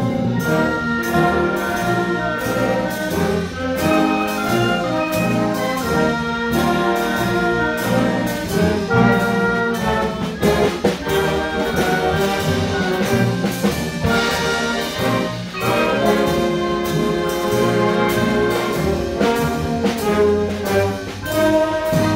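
Live concert band playing: brass and clarinets over a low tuba line, held notes with a steady beat.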